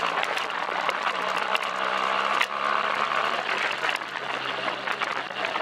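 BMW R1200GS boxer-twin engine running steadily under a loud rushing hiss, with frequent sharp clicks and rattles from riding off-road.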